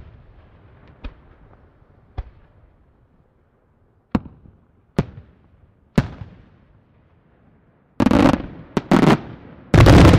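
Aerial firework shells bursting: single sharp bangs a second or two apart, each trailing off in echo, then a quick run of louder bursts close together about eight seconds in.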